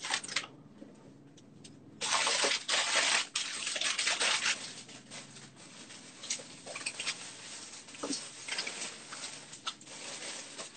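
Kitchen tap running and water splashing, loudest for a couple of seconds about two seconds in, then quieter and uneven with small knocks.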